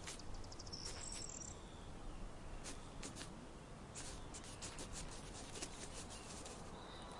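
Faint scratching and ticking of sand grains as a digger wasp digs open its burrow entrance, the clicks thickest in the middle. A brief high insect chirp sounds about a second in.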